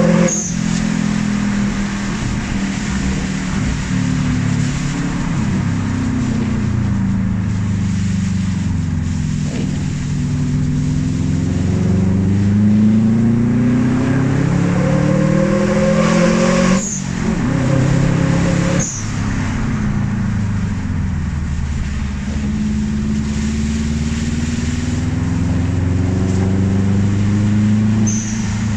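Car engine running through a Japspeed shotgun exhaust, its pitch slowly rising and falling over stretches of several seconds. Short clicks with brief drops in level break in a few times, twice about two seconds apart past the middle.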